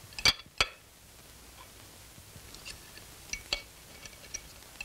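Knife and fork clinking against a china plate while a steak is cut: two sharp clinks just after the start, then a few lighter ticks and clinks later on.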